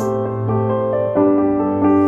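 Slow piano music: a gentle melody of held notes changing about every half second to second, over a sustained low bass note.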